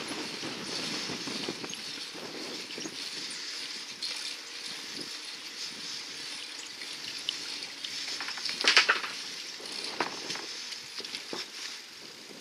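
Travel noise of a bicycle over brick and asphalt paving: a steady hiss with scattered small rattles and clicks, and a louder clattering rattle about two-thirds of the way through.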